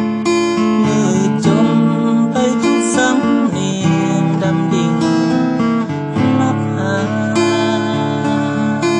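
Acoustic guitar strummed steadily while a man sings along.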